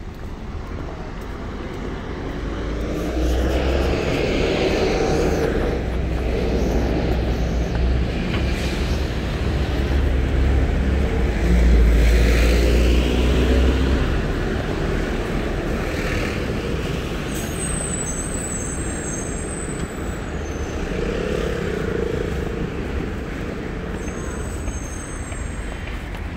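Road traffic on a busy city avenue: cars and a city bus going by, the rumble swelling a few seconds in and loudest about twelve seconds in. A short high squeal comes twice in the second half.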